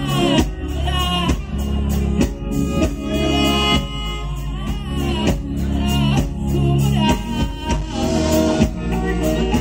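Live band music: a lead vocal sung over guitars, bass, keyboard and drums with a steady beat.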